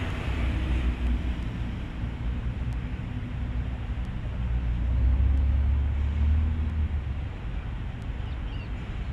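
Wind buffeting the microphone: a low, unsteady rumble with a hiss above it, swelling for a couple of seconds about halfway through.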